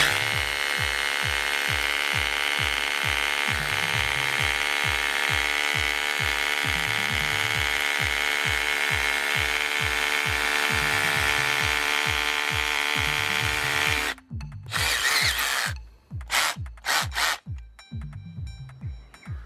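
Parkside PABH 20-Li B2 cordless hammer drill running steadily under load as it bores into a concrete paving slab, then stopping about fourteen seconds in. A few short, harsh bursts follow. Background music with a steady beat runs underneath.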